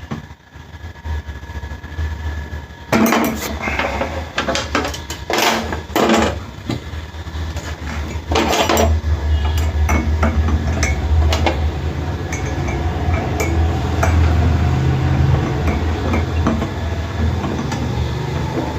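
Metal tools clinking and knocking against the blade and fittings of a wood-cutting machine during a blade change, with a run of sharp clinks between about three and nine seconds in. A steady low rumble runs underneath.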